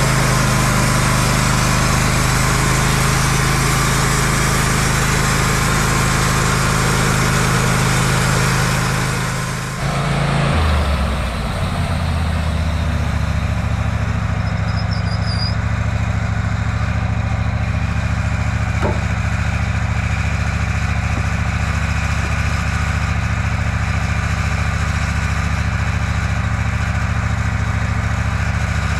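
Wood-Mizer portable sawmill's engine running fast and steady, then dropping to a lower, slower steady running about ten seconds in, as when throttled back to idle.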